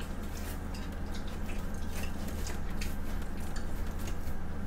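Close-miked clicks and crackles of a pizza slice being pulled apart, with a metal utensil scraping and tapping under the crust. A steady low hum runs underneath.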